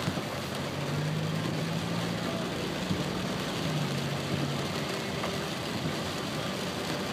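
A car's engine hums low and steady with road noise, heard from inside the cabin while driving slowly on wet streets in the rain, under a steady hiss of rain and tyres on wet pavement.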